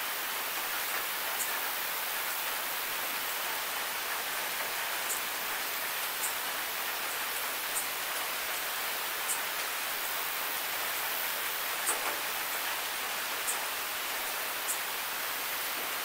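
Steady rain falling as an even hiss, with single drops ticking close by about once a second.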